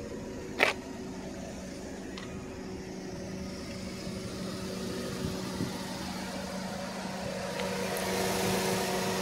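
Acura TSX idling with its cooling fan running: a steady hum under a rushing hiss that slowly grows louder, with a single sharp click about half a second in.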